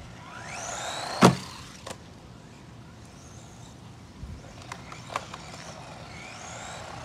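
Haiboxing 18859E 1/18-scale RC monster truck's 390 brushed electric motor whining up in pitch under throttle, near the start and again near the end. There is one sharp knock about a second in and a few lighter clicks later.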